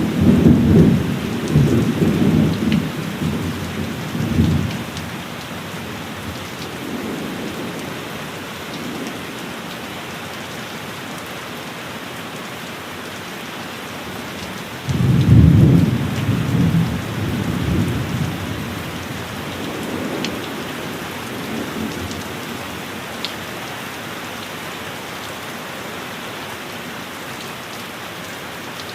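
Steady heavy rain with rolling thunder: a rumble dies away over the first few seconds, a fresh loud clap of thunder breaks about halfway through and rolls off over a few seconds, and a fainter rumble follows shortly after.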